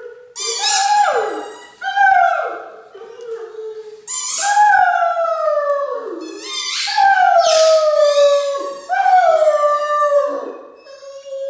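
Great Dane howling, about seven long notes that each slide down in pitch, mixed with squeaks from dog toys being chewed.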